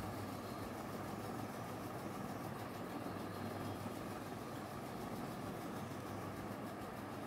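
Steady low background hum with hiss, unchanging throughout, with no distinct handling sounds standing out.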